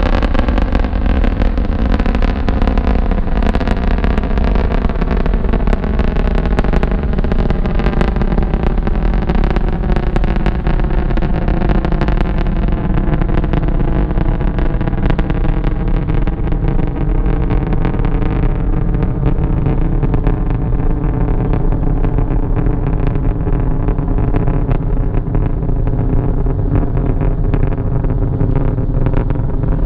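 Antares 230 rocket's first stage, two RD-181 engines, rumbling as the rocket climbs away. A steady loud rumble is laced with evenly spaced tones that slowly fall in pitch. The sound grows duller after about 12 s as the rocket draws off.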